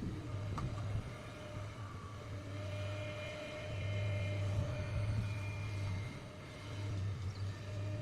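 Excavator's diesel engine running steadily with a low hum, and a fainter higher whine joining in for a few seconds in the middle.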